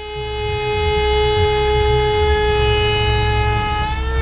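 CNC router spindle running at speed with a steady high whine over a low rumble. Near the end its pitch wavers, then slides down as the spindle spins down at the end of the engraving job.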